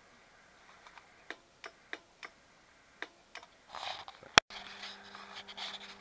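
Several light clicks of transceiver buttons and knobs being worked, then one loud switch click about four and a half seconds in. A steady mains hum starts right after it: the Yaesu FL-2100 linear amplifier switched on, its power transformer humming.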